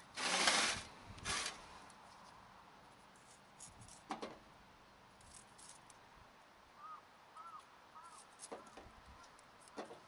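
Wooden-handled folding knife cutting asparagus spears over a small steel bowl: a loud rustle in the first second and a shorter one just after, then a few sharp, crisp cuts spaced several seconds apart.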